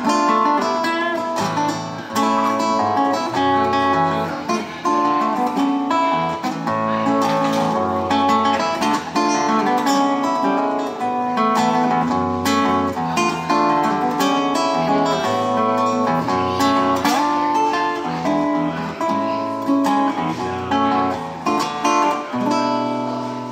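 Solo nylon-string classical guitar fingerpicked, a slow melody over a moving bass line of single notes.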